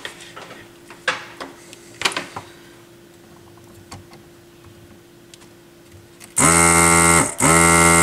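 Handheld desoldering gun's vacuum pump buzzing in two loud bursts of about a second each, near the end, each dropping in pitch as it cuts off, while desoldering a joint on the turntable's circuit board. Before that, a few light handling clicks over a faint steady hum.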